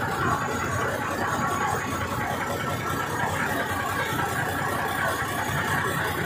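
River ferry's engine running steadily while the boat is under way.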